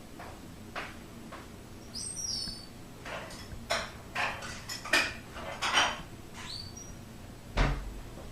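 Irregular clicks and light clatter of hard objects being handled, with a low thump near the end. Two brief high chirps come about two seconds in and again about six and a half seconds in.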